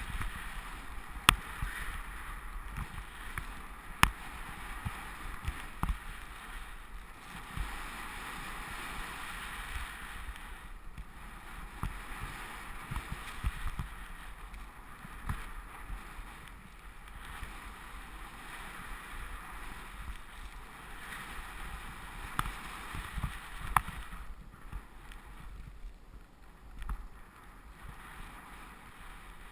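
Skis hissing and swishing through deep powder snow, with wind buffeting the microphone and a few sharp clicks. The hiss thins out after about 24 seconds.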